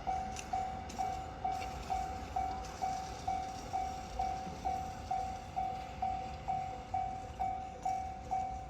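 Railway level-crossing warning bell ringing: an electronic clang repeating evenly, a little over twice a second.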